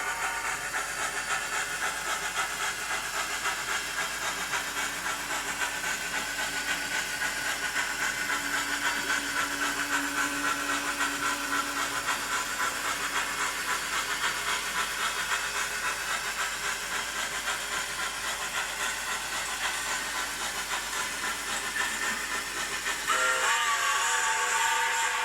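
Digital steam sound from an HO scale Heisler locomotive's ESU LokSound 5 decoder, played through the model's small speaker: steady hissing chuffs at an even, quick beat. Near the end the steam whistle blows.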